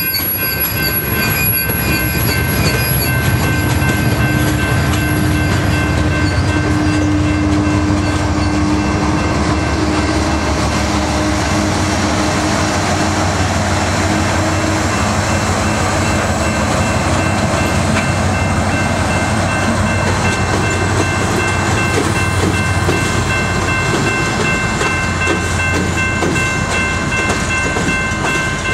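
Freight train passing close by: steel wheels rolling over the rails under loaded tank cars and hoppers, with a steady high ringing over the rolling noise. In the middle a CN GE ET44AC diesel locomotive goes by in the train, adding a low engine drone.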